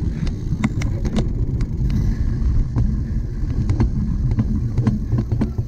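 Cyclocross bicycle being ridden, heard from a camera on the bike or rider: a steady rumble of wind and rolling noise, with frequent sharp clicks and knocks as the bike rattles.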